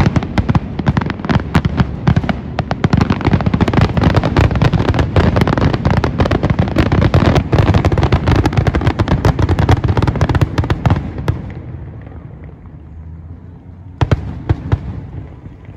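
Fireworks display: a dense, rapid barrage of shell bursts for about eleven seconds, then it dies away, with a short cluster of bangs a few seconds later.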